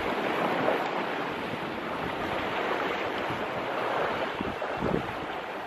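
Sea swell washing against the rocks at the water's edge, a steady rushing that swells and eases, with wind buffeting the microphone.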